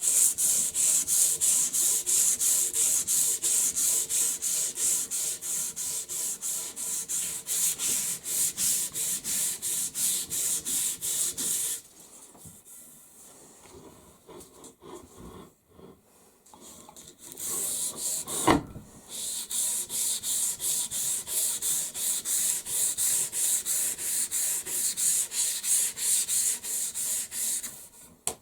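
Quick back-and-forth smoothing strokes on a wooden axe handle, a scraping, rubbing hiss at about three strokes a second. The strokes stop for a few seconds midway, and a single sharp click comes just before they start again.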